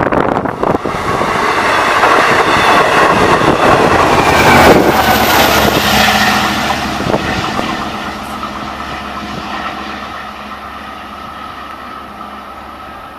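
Long Island Rail Road bilevel push-pull train passing at speed, with its DE30AC diesel-electric locomotive at the rear. The train noise builds to its loudest about five seconds in as the locomotive goes by, then fades as the train pulls away, leaving a steady engine hum.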